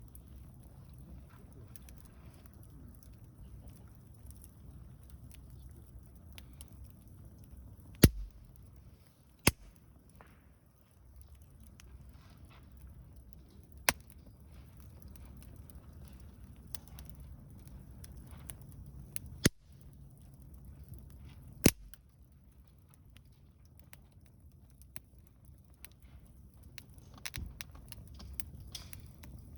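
Wood campfire burning with a faint crackle, broken by five sharp, loud pops spread through: the burning wood spitting and snapping.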